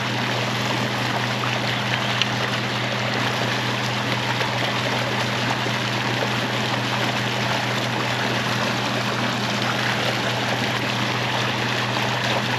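Warm water discharge gushing from an outlet into the river: a steady rush of pouring, churning water with a constant low hum underneath.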